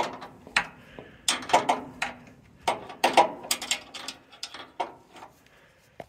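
Irregular metallic clicks and clanks of a steel combination wrench working a bolt loose on the sawmill engine's mounting plate, thinning out near the end. The engine mount is being loosened to realign the belt-drive pulley.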